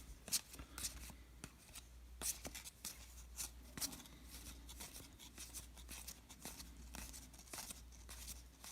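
Faint handling of a stack of baseball cards, flipped through quickly one after another: an irregular run of soft clicks and flicks as card stock slides over card stock.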